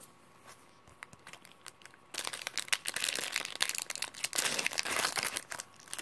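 Foil wrapper of a Pokémon booster pack crinkling as fingers tear it open. It starts about two seconds in, after a quiet stretch with a few faint clicks.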